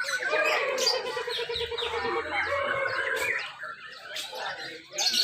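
Several lovebirds chattering and trilling at once in rapid high chirps. The sound thins out about three and a half seconds in and picks up again near the end.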